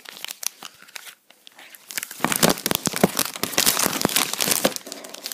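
Clear plastic wrapping crinkling and crackling as it is handled and pulled away from the paper documentation. It is faint at first and gets loud and busy from about two seconds in.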